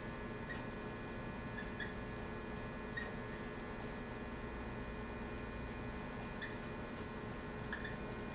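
Felt-tip dry-erase marker squeaking on a whiteboard as characters are written, a handful of brief high squeaks at irregular moments over a steady low room hum.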